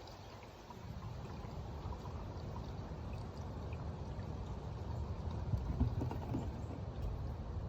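Motor oil being poured from a bottle into the engine's oil filler, a steady pouring sound.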